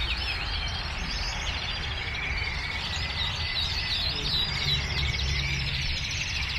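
Caged canaries chirping and twittering continuously, several birds at once, over a steady low rumble.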